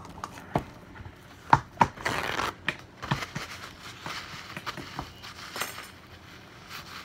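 Paper towels being handled, torn and crumpled: a few sharp clicks, with a short rustling tear about two seconds in.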